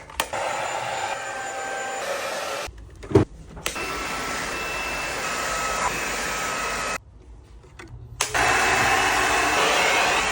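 Jigoo cordless vacuum cleaner running with a steady airy whine. It cuts out twice for about a second, with a knock in the first gap, and comes back louder near the end.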